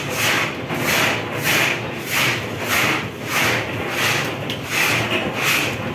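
A baker's hands rubbing and pressing flatbread dough across a wooden peel, a rhythmic swishing stroke about one and a half times a second.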